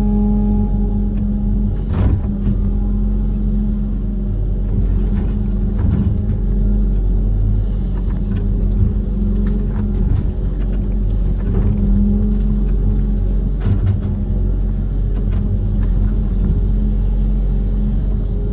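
Kobelco SK130 amphibious excavator's diesel engine running steadily, with a few sharp knocks.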